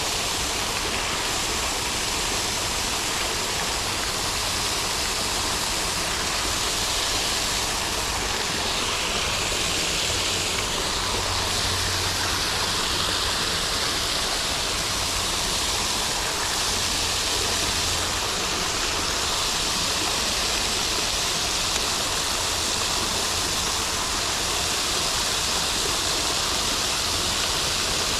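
Steady rushing of water pouring over a small waterfall.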